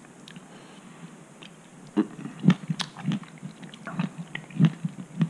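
Close-up chewing of a juicy tangerine segment with a blackberry: irregular wet mouth clicks and smacks, starting about two seconds in.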